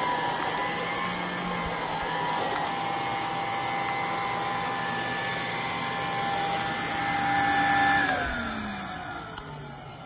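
A 1980 Electrolux Olympia 1 canister vacuum running with a steady whine. About eight seconds in its pitch falls away and the sound fades as the motor spins down.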